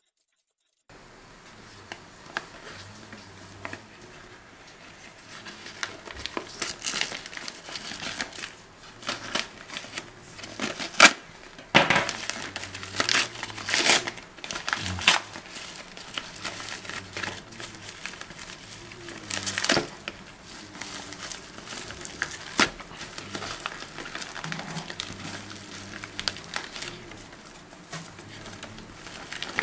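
Plastic mailer bag and bubble wrap being cut and torn open by hand: continuous crinkling and rustling of plastic with sharp tearing strokes. It starts about a second in and is loudest in a few spells around a third and halfway through.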